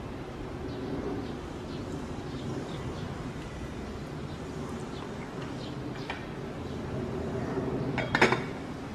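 Aluminium lid set down on a steel stock pot with a short metallic clatter near the end, over a steady hiss of water boiling on a gas burner.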